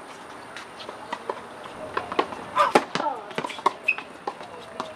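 Tennis balls struck by rackets and bouncing on a hard court, sharp pops coming irregularly and thickening after about two seconds, with a few brief sneaker squeaks on the court surface.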